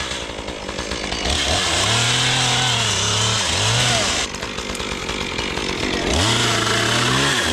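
An engine revved up and down over and over, its pitch rising and falling every second or two, with a harsh hiss that cuts in and out several times.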